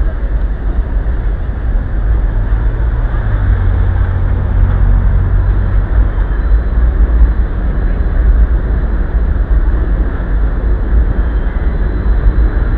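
Street traffic noise picked up by the small built-in microphone of camera sunglasses: a steady, loud low rumble with no single standout event.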